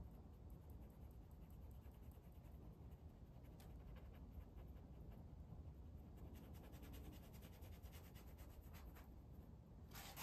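Faint scratching of a paintbrush working oil paint on gesso-primed canvas, with a quick run of small scrapes from about six to nine seconds in, over a low room hum.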